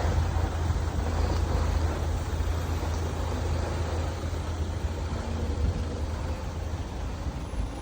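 Pickup truck driving on a rough road: a steady low rumble of engine and road noise.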